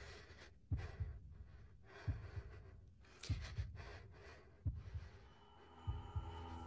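Horror sound-effect heartbeat: a slow double thump about every 1.3 seconds, with heavy, airy breathing between the beats. A steady drone tone comes in about five seconds in.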